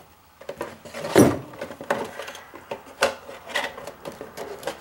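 Hands handling a boxed suspension part and its cardboard packaging: a few short knocks and rustles, the loudest about a second in.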